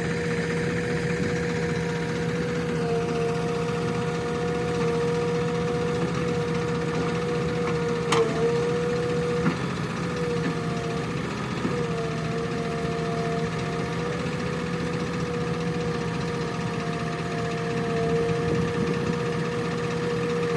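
JCB backhoe loader's diesel engine running steadily, with a steady high whine over its low hum that dips slightly in pitch now and then. A sharp click comes about eight seconds in.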